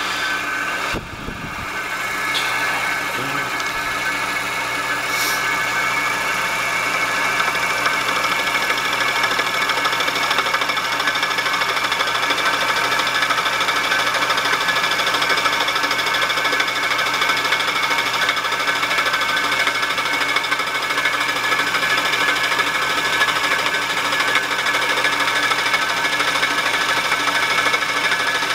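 Milling machine with a fly cutter running steadily with a whine made of several steady tones. It picks up again about a second in and builds over the next few seconds.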